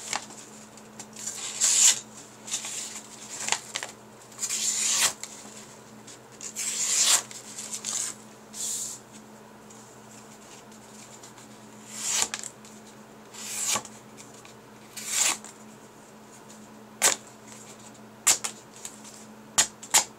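A freshly sharpened stainless steel kitchen knife slicing through paper: a series of about nine short, hissing swipes, then a few light clicks near the end.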